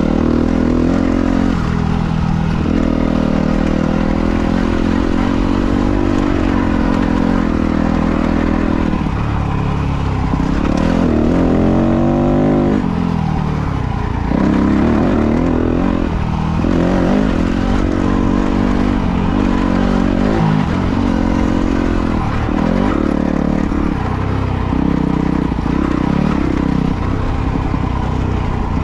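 Dirt bike engine running hard, its revs rising and falling over and over.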